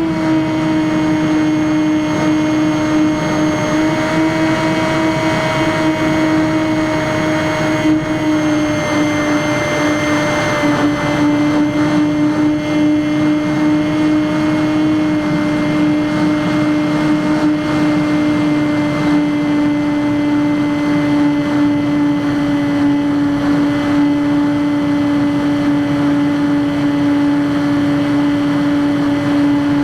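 Electric motor and propeller of a Skywalker X5 flying wing running under steady power. It makes a strong, steady whine with several overtones that eases slowly lower in pitch, over a rushing noise of air.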